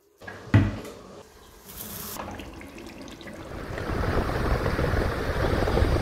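Kitchen tap running water into a steel sink, with a single knock about half a second in; the flow gets louder from about four seconds in.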